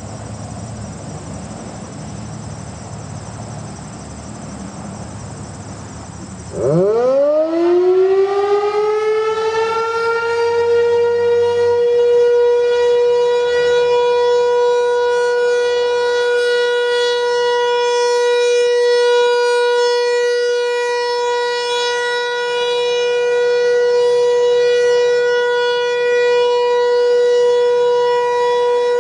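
Federal Signal 508 single-tone outdoor warning siren starting up about seven seconds in: its tone winds up quickly and settles into a steady, loud wail. Before it starts, only a low rumble of background noise.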